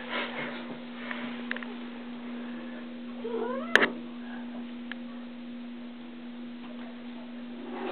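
Domestic cat meowing once, a short rising call a little before the middle, followed at once by a sharp click, over a steady low hum.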